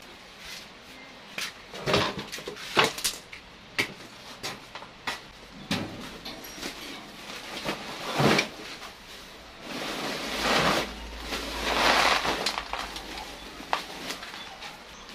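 Rustling of a plastic sack being handled over a large basin, in uneven surges, with a few sharp knocks and clatters about two and three seconds in.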